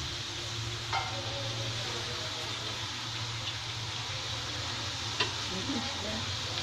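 Fafda strips of gram-flour dough deep-frying in hot oil in a kadhai, with a steady sizzle; a short knock about a second in.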